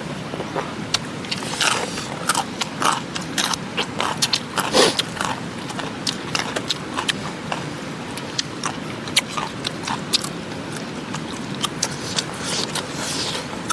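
Someone biting and chewing food, with many irregular, sharp crunchy clicks, over a steady rush of running river water.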